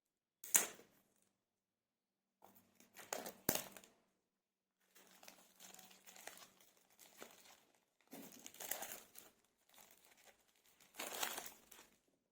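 Packaging of an earbuds box being handled and opened: crinkling and tearing in about five separate bursts, with a sharp click about three and a half seconds in.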